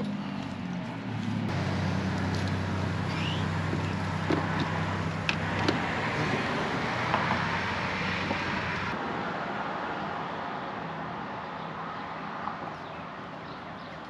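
A motor vehicle's engine running with a steady low hum, fading away over the last few seconds, with a few light clicks along the way.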